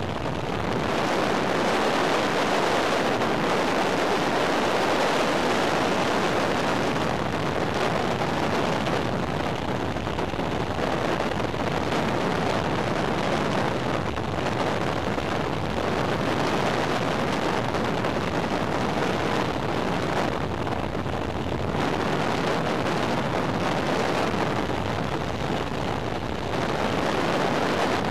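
Freefall wind rushing over the camera microphone, a loud, steady rush of air with no voices.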